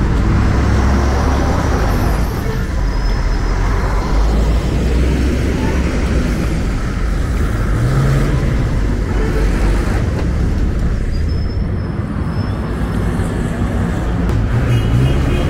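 City street traffic: cars and buses passing with a steady engine and tyre rumble.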